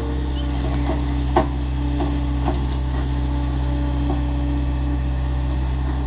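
Liebherr 900 wheeled excavator's diesel engine running steadily with a steady whine over it, while the bucket digs and scrapes through earth and stones, giving a few short sharp knocks. The loudest knock comes about one and a half seconds in.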